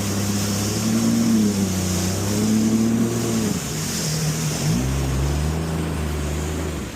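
Jet ski engine running, its pitch wavering up and down with the throttle. It drops sharply about three and a half seconds in, then picks up again a second later, over a steady high hiss.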